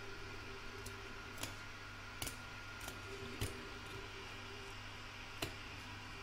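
Curved embroidery scissors snipping away excess fabric close to the stitching, about half a dozen short sharp snips spaced out unevenly. A faint steady whirr runs underneath, from a desktop computer's cooling fan working hard in the heat.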